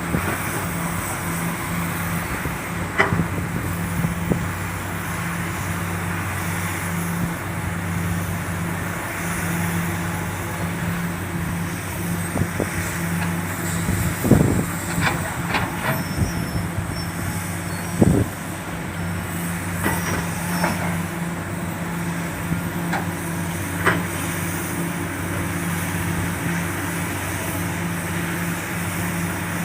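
Komatsu PC400 hydraulic excavator's diesel engine running steadily under load while loading a dump truck, with a handful of sharp knocks and clanks, the loudest about halfway through.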